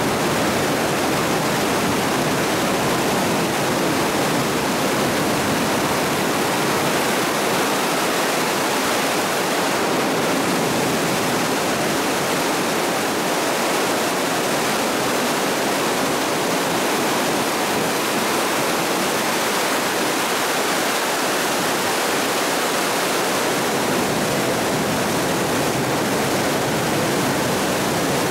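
Flash floodwater rushing and churning in a steady, unbroken torrent as a flooded creek surges around concrete pillars.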